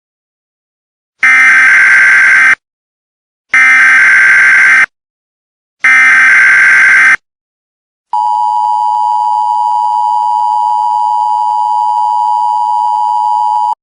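Emergency Alert System header tones: three identical screeching data bursts, each just over a second long, which carry the alert's coded header. About eight seconds in the steady two-tone EAS attention signal begins and holds to the end, announcing the alert message that follows.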